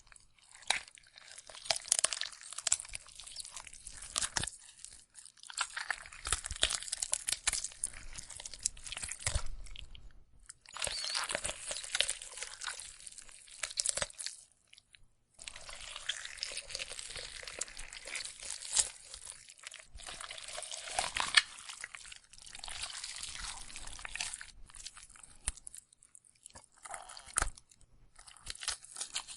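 Sound effect of a carcass being ripped apart: tearing in stretches of several seconds broken by short pauses, dotted with sharp cracks. It grows choppier in the last few seconds.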